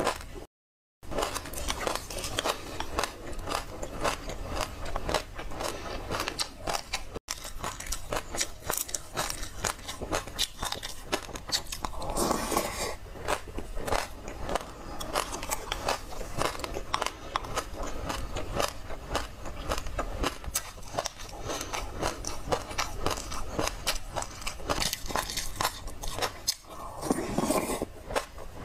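Close-up chewing and crunching of spoonfuls of a seedy passion fruit mixture: a dense run of small crisp crunches, broken by two abrupt silent gaps.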